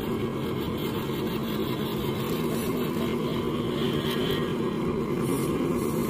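Electric motor and gear drivetrain of an RC scale crawler whirring steadily as it crawls along a dirt path, growing slightly louder toward the end.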